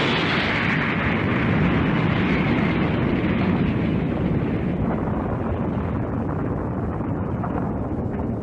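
Close-miked fizzing of a carbonated liquid: a dense crackle of countless bursting bubbles, its bright upper hiss slowly thinning as the fizz dies down.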